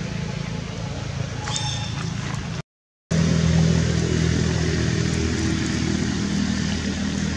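An engine running steadily, a low even hum with no change in pitch. It cuts out for about half a second just before three seconds in and comes back louder.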